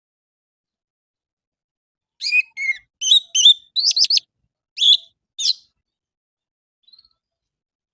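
Orange-headed thrush song: after about two seconds of silence, a quick run of short, varied whistled phrases that sweep up and down in pitch, stopping a little past halfway.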